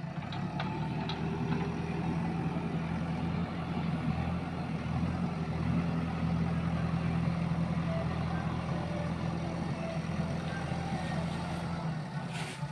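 Diesel engine of a JCB backhoe loader running steadily with a deep, even hum. A short sharp noise sounds near the end.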